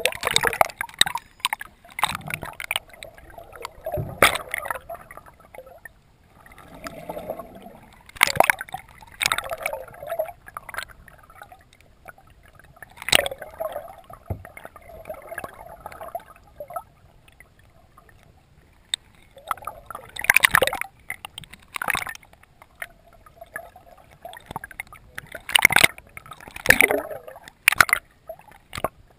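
Water gurgling and sloshing against a GoPro camera's waterproof housing held underwater, with scattered sharp clicks and knocks coming at irregular intervals.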